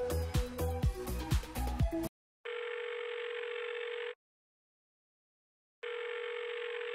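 Music with a steady beat stops about two seconds in, then a telephone ringback tone: two steady buzzing rings of about a second and a half each, with a pause between, heard by a caller waiting for the line to be answered.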